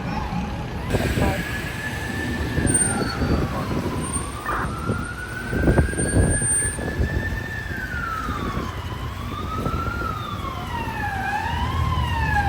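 Fire apparatus siren wailing in slow rising and falling sweeps that quicken toward the end, over the noise of city street traffic.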